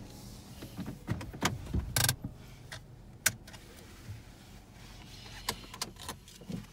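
Inside a car moving slowly to park: a low steady hum of the cabin with scattered sharp clicks and knocks, the loudest about two seconds in.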